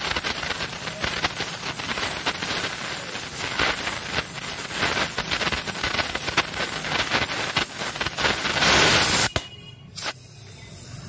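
Oxy-acetylene welding torch with a neutral flame hissing at a mild-steel pipe joint, with many fine crackles and pops as the filler rod melts into the weld pool and throws sparks. About eight and a half seconds in the hiss grows louder, then cuts off abruptly, followed by a brief quiet gap and one short burst.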